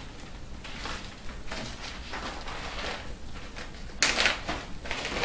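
Plastic zip-top bags crinkling and rustling as they are handled and opened, with a louder crinkle about four seconds in.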